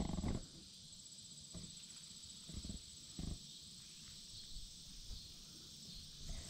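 Insects trilling steadily at a high pitch in an evening chorus, with a few soft low thumps about one and a half, two and a half and three seconds in.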